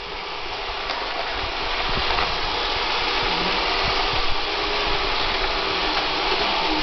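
Roomba robot vacuum running: the steady whir of its vacuum motor and brushes, growing louder over the first couple of seconds as it comes closer, then holding steady.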